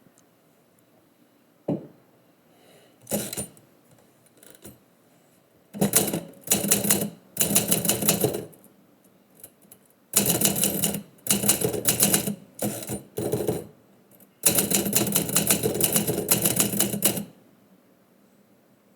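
Typewriter keys being struck in fast runs: a few single strokes at first, then three bursts of rapid typing with short pauses between them.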